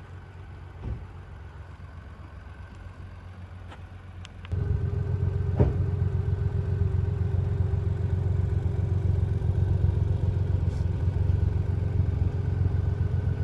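Ford Puma ST's 1.5-litre three-cylinder turbocharged petrol engine running at a steady idle, becoming abruptly much louder about four and a half seconds in and holding there.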